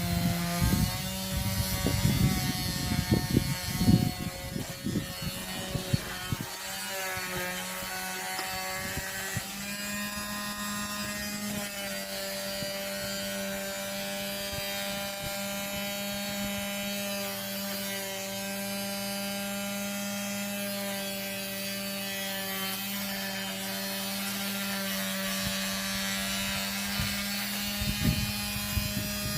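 Electric sander running steadily on wood with a constant motor hum. For the first six seconds it comes with irregular rubbing and knocking as the sander is worked across the surface; after that it runs smoothly.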